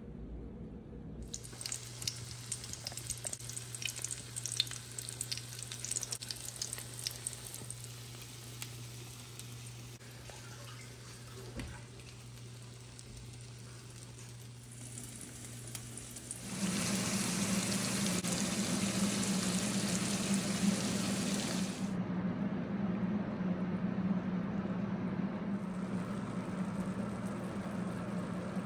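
Food frying in oil in a pan, a crackling sizzle of fine pops. About halfway through, a louder, steady rushing noise with a low hum comes in, then eases to a steadier, slightly quieter level.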